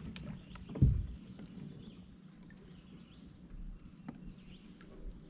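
Small birds chirping faintly over low outdoor background noise, with one heavy thump about a second in and scattered light clicks and knocks.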